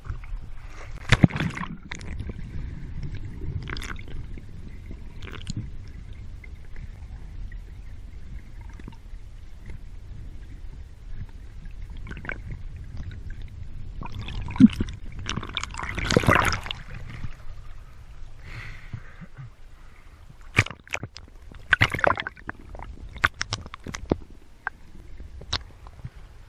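Seawater sloshing and gurgling around a swimmer's GoPro camera housing as it rides half-submerged at the surface and goes underwater, under a steady low rumble. Sharp splashes break in about a second in, again around the middle, and several times near the end.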